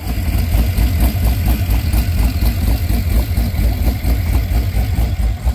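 LS-swapped V8 engine of a jet boat running at idle, a deep, even throb of exhaust pulses.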